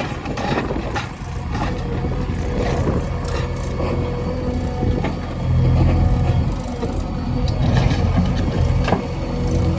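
Diesel engine of a JCB 3DX backhoe loader running, swelling louder for about a second around the middle and again for a stretch near the end, with scattered knocks.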